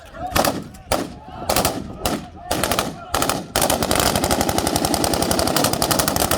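Gunfire: about six single shots roughly half a second apart, then from about three and a half seconds in, long continuous bursts of automatic fire.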